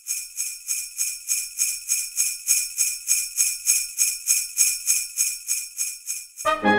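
Sleigh bells shaken in an even rhythm, about four jingles a second. They stop just before the end, when brass music comes in.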